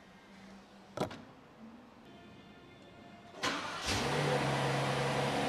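A Rolls-Royce V12 engine started with the push button: a sharp click about a second in, a short crank about three and a half seconds in, then the engine catches and settles into a steady, much louder idle.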